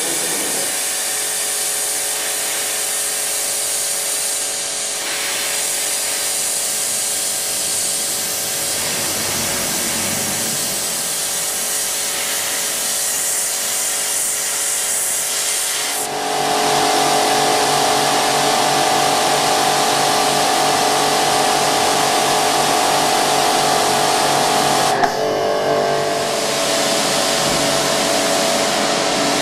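NESCO high-pressure washer running, its water jet hissing steadily as it blasts a motorcycle's chain and swingarm. About halfway through the sound turns louder, with a stronger steady machine hum, and it breaks off briefly about three-quarters through before carrying on.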